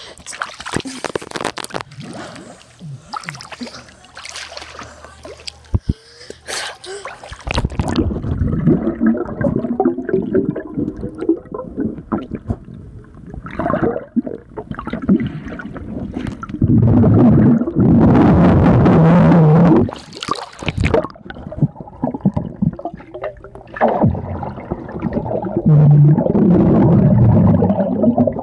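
Water splashing against a phone held at the surface of a swimming pool, then the phone goes under about seven seconds in and the sound turns muffled: underwater gurgling and bubbling with loud bursts of a muffled voice.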